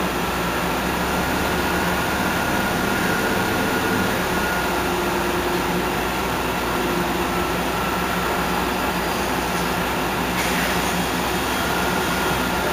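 Heuliez GX 137 city bus standing with its engine idling: a steady hum with a faint high whine over it.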